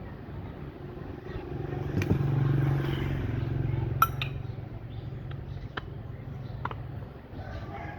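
A motor running with a steady low hum for about six seconds, starting about a second and a half in and stopping near the end, with a few sharp clicks over it.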